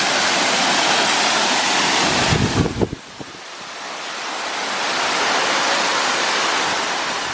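Loud, steady rushing of a waterfall, with a couple of low thumps a little over two seconds in. About three seconds in it drops sharply, then swells back up.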